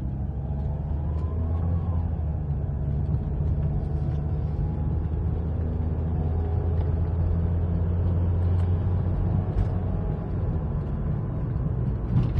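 Car engine and road noise heard from inside the cabin while driving: a steady low drone, with the engine's pitch rising for a moment about two seconds in and then settling.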